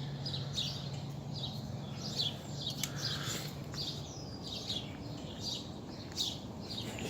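A bird calling over and over in short, high, downslurred chirps, about two a second.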